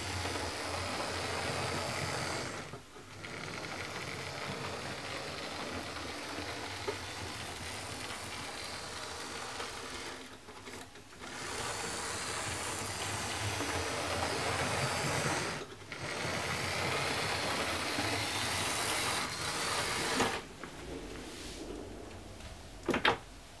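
Fleischmann HO-scale model steam locomotive running on track: the steady whir of its small electric motor and gearing, with its wheels rattling on the rails. The sound dips out briefly three times and fades after the locomotive leaves. Near the end come two sharp clicks.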